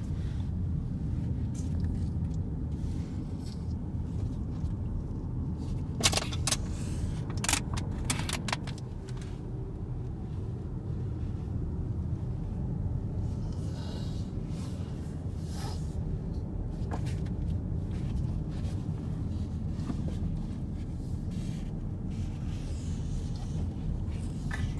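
Car driving, heard from inside the cabin: a steady low rumble of engine and tyres on the road. A cluster of sharp clicks and rattles about six to eight and a half seconds in.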